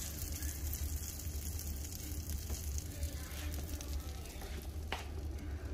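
Melted butter sizzling steadily in a nonstick frying pan on an electric stove, a fine crackling hiss over a steady low hum, with a short tick about five seconds in.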